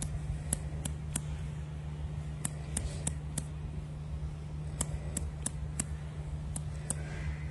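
Short, sharp, high clicks, about sixteen in all, some single and some in quick runs of two to four, over a steady low hum.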